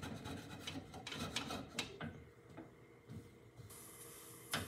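A spatula scraping and tapping against a frying pan: a few quick strokes in the first two seconds, quieter rubbing after, and one sharper click near the end.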